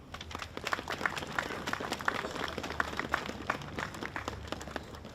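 Crowd applauding, many hands clapping, the claps thinning out and fading near the end.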